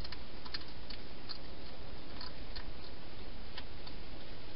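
European hedgehog feeding at a dish inside a plastic feeding box: small, irregular clicks as it eats, over a steady hiss.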